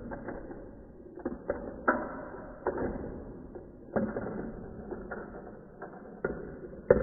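Steel marbles rolling and rattling through a plastic Gravitrax marble run, with about a dozen irregularly spaced clacks as they strike its elements and drop between tracks. The loudest clack comes near the end.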